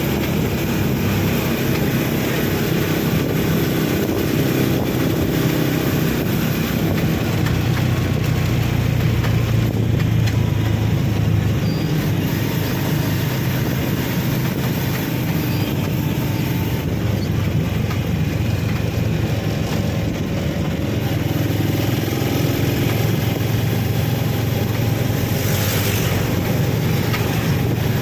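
An engine running steadily at a constant low hum.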